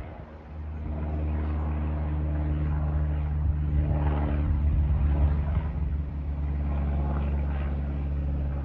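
An engine running steadily with a low, even hum that starts about half a second in.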